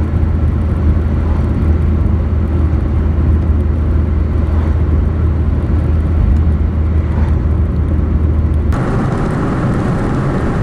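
Truck driving along a smooth road, heard from inside the cab: a steady deep engine and road rumble with tyre hiss. About nine seconds in the sound changes abruptly, the deep rumble dropping away and a thinner hiss taking over.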